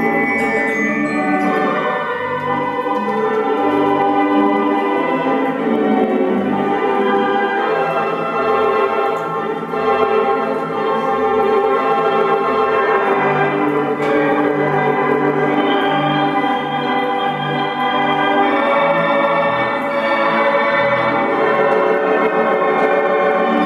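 Wurlitzer theatre organ music from a Hauptwerk virtual organ playing the Paramount 310 sample set: full sustained chords over a bass line that pulses about twice a second.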